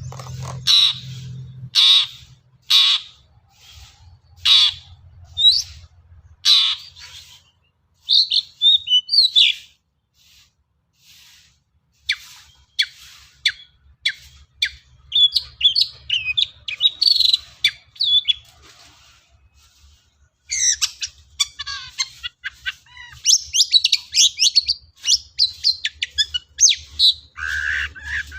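Long-tailed shrike (cendet) singing: about one harsh call a second at first, then fast, varied chattering phrases full of mimicked notes.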